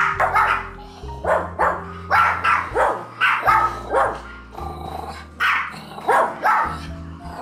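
Small dog, a Yorkshire terrier, barking repeatedly in quick runs of sharp yaps, about two a second, with a short pause partway through.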